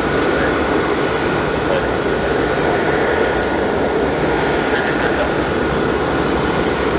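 Boeing 787-9's Rolls-Royce Trent 1000 turbofans running steadily with the airliner held on the runway: an even rush with a thin high whine.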